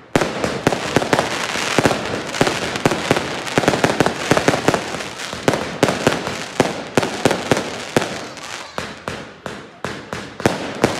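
Aerial fireworks bursting in a rapid barrage: a dense run of sharp bangs and pops, several a second, without let-up.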